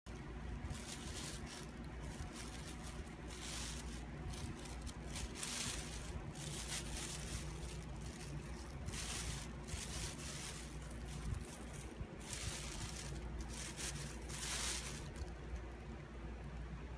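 Plastic bag rustling and crinkling in short, irregular bursts as a tiny dog noses it over her kibble to bury it, with a steady low hum beneath.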